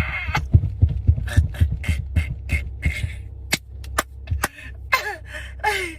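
A man imitating a woman's snore with his mouth: a quick run of low rattling pulses, then a few sharp clicks and two short falling vocal sounds near the end.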